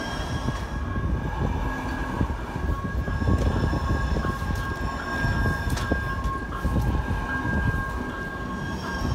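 Light rail train passing close by: a steady rumble with a few sharp clicks, and a steady high whine over it.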